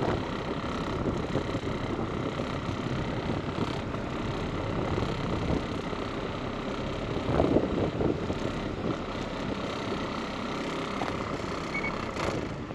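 A boat's engine running steadily while under way, with a brief louder moment about seven and a half seconds in.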